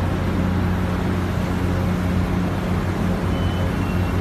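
Steady low mechanical drone of heavy port crane machinery working a container lift, an even hum that does not change.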